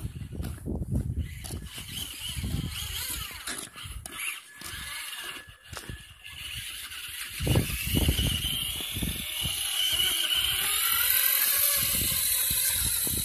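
Traxxas Stampede 2WD RC monster truck's electric motor and gears whining, the pitch rising and falling with the throttle as it struggles through snow. The whine grows louder and steadier about halfway in.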